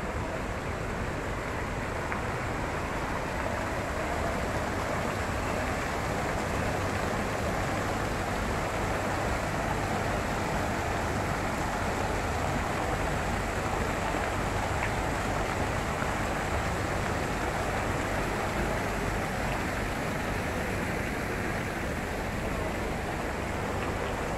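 Steady rush of fountain water: a tall jet and many smaller jets falling and splashing into a pool, a little louder through the middle.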